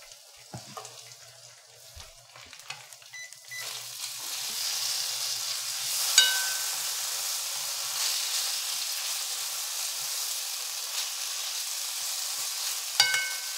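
Offal (horumon) and cabbage sizzling in a nonstick frying pan while being turned with chopsticks. The sizzle is faint at first and grows louder about three and a half seconds in, then holds steady. There are two sharp ringing clinks, one about six seconds in and one near the end.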